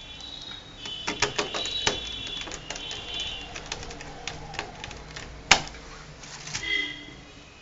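Small hard clicks and taps as a screwdriver and tiny screws are handled on a laptop's opened keyboard deck. They come in clusters, with one sharp, louder click about five and a half seconds in. High chirping sounds in the background.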